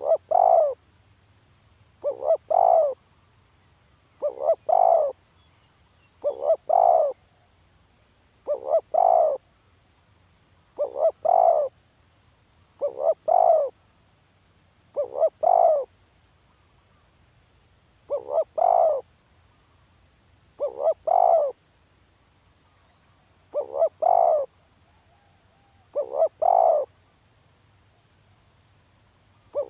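Spotted dove cooing: a short phrase of a couple of brief coos and a longer one, repeated steadily about every two seconds.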